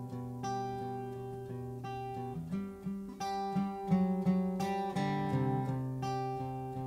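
Acoustic guitar playing an instrumental passage without singing, notes plucked and strummed and left ringing, a little louder about four seconds in.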